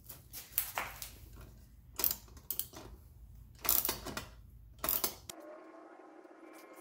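Socket ratchet clicking in short, irregular bursts as a bolt on an aluminium radiator guard is tightened. The clicking stops abruptly about five seconds in, leaving a faint steady hum.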